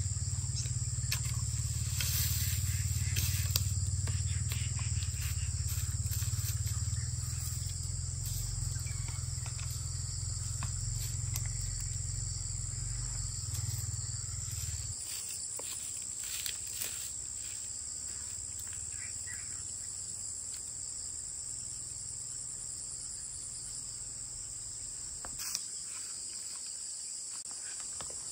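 Steady, high-pitched insect chorus, with a low rumble underneath that fades out about halfway and a few light clicks and knocks.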